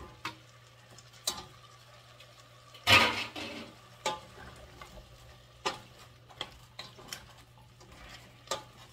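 A spoon stirring beef and diced bell pepper in a stainless steel pot, with scattered knocks and scrapes of the spoon against the pot and a plastic bowl; a louder clatter about three seconds in.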